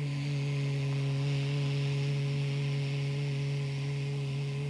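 A woman's voice holding the qigong Kidney healing sound: one long, steady low tone with a breathy hiss over it, made between the back molars and meant to mimic a gurgling stream.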